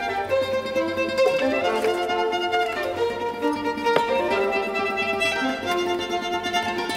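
Background music: a violin melody over plucked string accompaniment.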